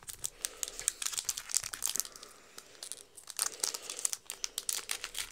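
Foil booster-pack wrapper crinkling and tearing as it is peeled open by hand: a run of sharp crackles that eases off briefly in the middle.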